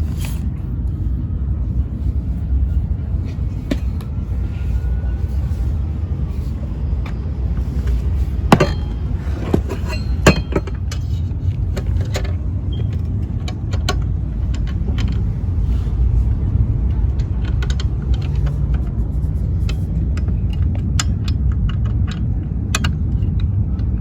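Scattered clicks and two sharper knocks, about eight and ten seconds in, as boat seat parts are handled and fitted. Under them runs a steady low rumble.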